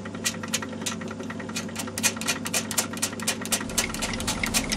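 Myford ML7 lathe running with its chuck spinning, not yet cutting: a steady hum with a light regular ticking about four times a second. A low rumble joins in near the end.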